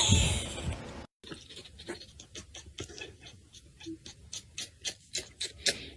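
A brief rustle at the start, then a run of light, sharp clicks or taps, a few a second and unevenly spaced.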